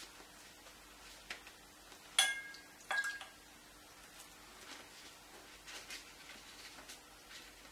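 Two sharp ringing clinks, about two and three seconds in, as a paintbrush is knocked against a hard paint container, followed by faint swishing strokes of a wide flat brush on watercolor paper.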